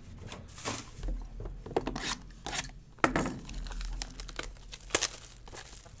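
Plastic shrink wrap being torn and crumpled off a sealed box of baseball cards: a run of irregular crinkles and rips.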